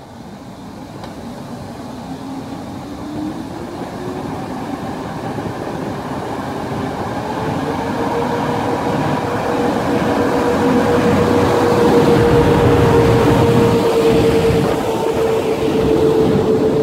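EP09 electric locomotive pulling away with a passenger train and passing close by, growing steadily louder. A whine rises in pitch as it gathers speed, then holds over the rumble of the locomotive and coaches.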